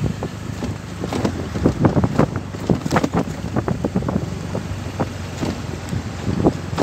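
Motor vehicle engine running steadily while it jolts over a rough track, with irregular knocks and rattles throughout and wind on the microphone.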